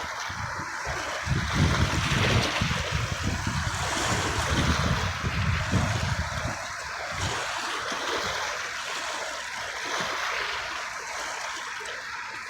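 Sea waves washing and surging, with wind buffeting the microphone in uneven low gusts.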